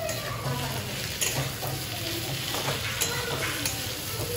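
Food sizzling in a frying pan, with a few sharp clicks of a utensil against the pan as it is stirred.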